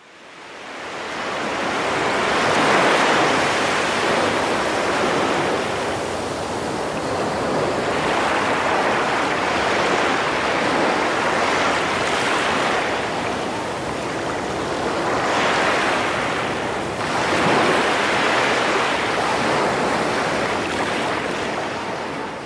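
Ocean surf: waves rolling in and washing out, the noise swelling and easing every few seconds. It fades in over the first couple of seconds.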